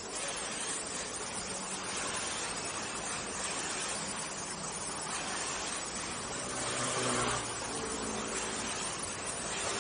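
Steady hiss of a gas welding torch flame. About seven seconds in, a motor vehicle's engine rises and fades over it.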